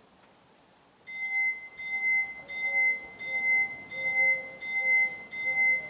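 Italian level-crossing warning bell starting to ring about a second in, a bright repeated ding about one and a half strokes a second, sounding the alarm that a train is approaching and the barriers are about to come down.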